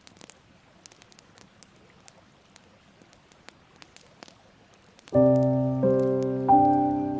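Faint crackling of a wood fire, scattered sharp pops and clicks, then a piano enters about five seconds in with slow, sustained chords that ring and fade.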